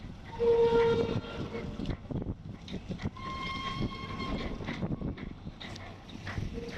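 Short horn-like blasts at two pitches over a steady rumble: a lower note about half a second in, a higher, longer note around the middle, and the lower note again near the end.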